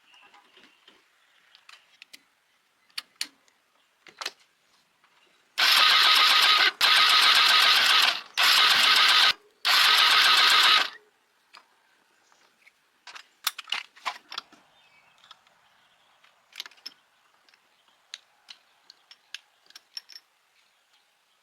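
Four loud, steady mechanical bursts in quick succession, each about a second long and cut off sharply, with light clicks and taps of handled tools and parts before and after.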